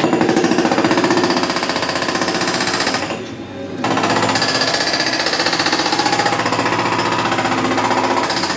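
Hydraulic breaker on a JCB 3DX backhoe hammering rapidly into the road surface over the machine's running diesel engine. The hammering stops briefly about three seconds in, then starts again.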